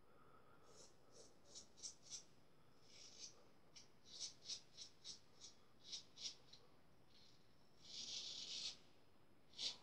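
Occam's single-edge safety razor on its aggressive plate cutting through lathered stubble: about a dozen short strokes in quick succession, then one longer stroke near the end, the sound shavers call the razor singing. It is the sign of the blade taking off a lot of hair.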